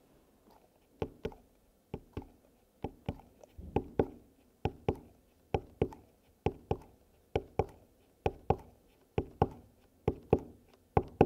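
Knocking on a tabletop in pairs, about one pair a second, each knock short and wooden-sounding with a brief ring.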